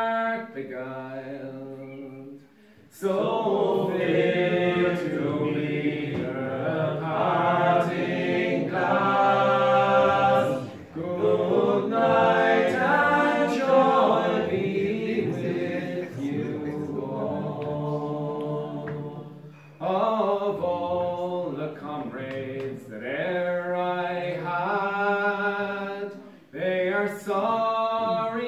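A small group of men singing together without accompaniment, in long held phrases with brief pauses for breath between them.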